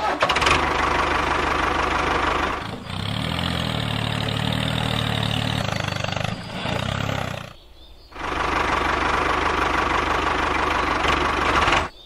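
Tractor engine starting and running steadily. It cuts out for about half a second around two-thirds of the way through, runs again, and stops abruptly near the end.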